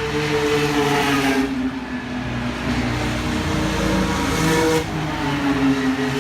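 Indy car engines running at speed, a steady engine note that steps in pitch now and then, with cars rushing past.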